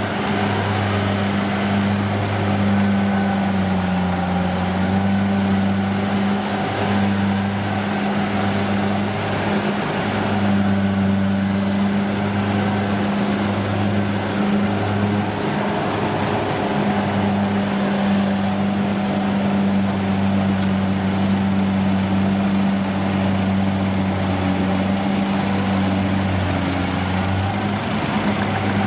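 Rice combine harvester's diesel engine running steadily under load as it resumes harvesting, a continuous low drone whose pitch dips slightly about four seconds in.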